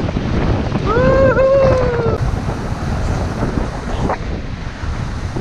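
Wind buffeting the camera microphone on a moving dog sled. About a second in, there is one brief high call that rises, dips, and falls away.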